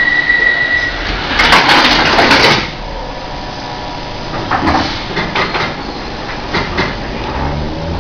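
London Underground C Stock train's sliding passenger doors closing, a loud rush of noise ending in knocks about two seconds in, after a steady high tone cuts off about a second in. Scattered clicks and knocks follow, and near the end the traction motors begin a rising whine as the train starts to pull away.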